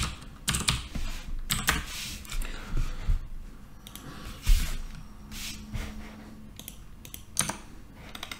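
Computer keyboard keys being pressed in irregular runs of clicks, busier in the first few seconds and sparser after, with one louder keystroke about halfway through.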